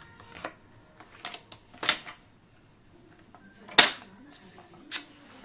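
About five scattered clicks and taps of paper and craft tools being handled on a work table, the loudest a sharp click just under four seconds in.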